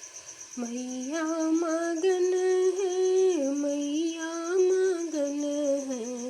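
A woman singing a slow devotional melody with no accompaniment. Her voice comes in about half a second in and holds long notes that step up and down.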